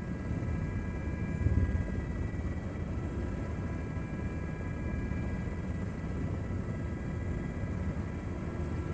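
Helicopter running: a steady low rotor rumble with a thin, steady turbine whine above it, and a brief louder low surge about a second and a half in.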